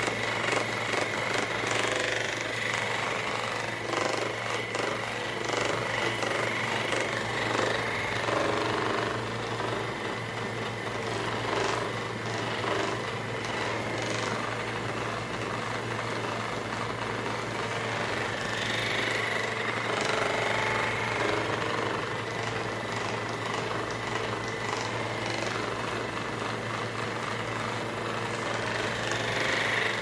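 Handheld percussion massage gun running steadily, its head rapidly hammering against the muscles of a person's back and neck.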